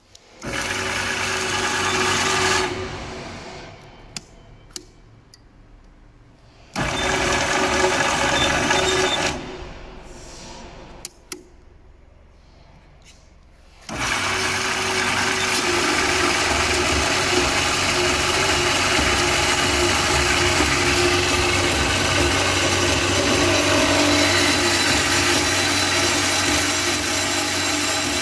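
MIVA 250 M band saw's motor and blade drive switched on and run briefly, then switched off to coast down, twice, with clicks of the controls between. It is then started a third time and runs steadily with an even hum.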